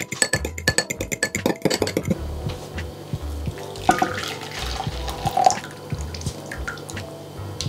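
A metal fork beating an egg in a glass bowl, rapid clinks against the glass for about two seconds. Then a frothy milk, yeast and sugar mixture is poured from a saucepan into a glass bowl with a liquid splashing sound, over background music.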